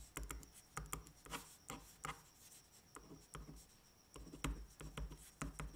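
Pen writing on paper: a faint, irregular run of short scratching strokes and taps, several a second.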